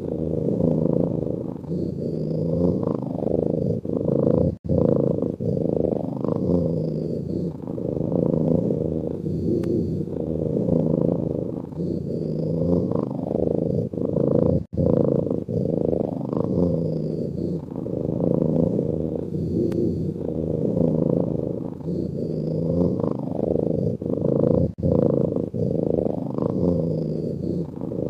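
A sleeping cat's rumbling, purr-like breathing, rising and falling in slow breath cycles. The same stretch repeats about every ten seconds as a loop, with a brief gap at each join, three times.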